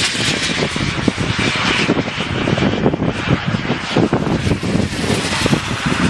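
Radio-controlled model jet's turbine engine rushing by in flight, a steady loud roar-like hiss. Irregular low buffeting from wind on the microphone runs through it.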